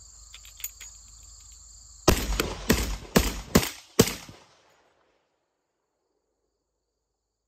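Aksa S4 semi-automatic 12-gauge shotgun (a Benelli M4 clone) firing five rapid shots of light 7½ birdshot in about two seconds, starting about two seconds in, each shot echoing briefly; the action cycles and ejects every shell. Crickets chirp steadily before the shots, and the sound cuts off abruptly to silence soon after.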